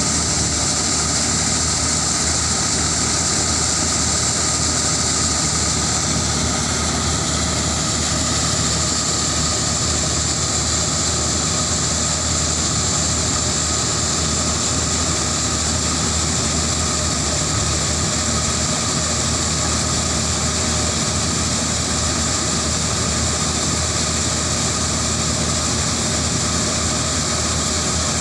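Corn harvesting machine running steadily at constant working speed: an even engine drone with a steady high whine on top.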